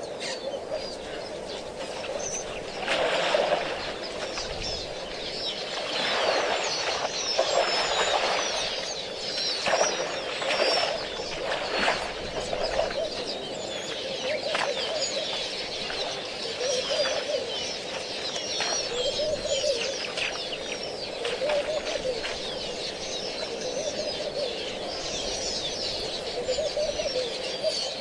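Wild birds calling at an African waterhole: doves cooing over and over, mixed with many short, high chirps from small songbirds. There are several louder bursts in the first half.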